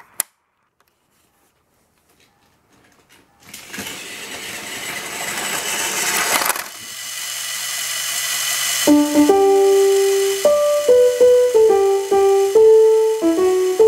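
A few seconds of near silence, then the whir of a small toy-train motor building up. About nine seconds in, a station departure melody played on an Electone organ starts over the whir.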